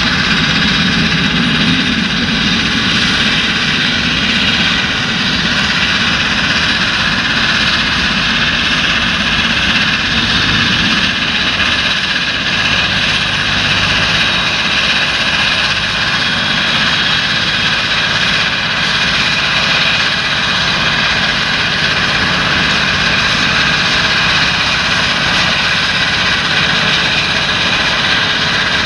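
Large John Deere tractor's diesel engine running steadily while working a field, with a thin steady high whine over the engine noise.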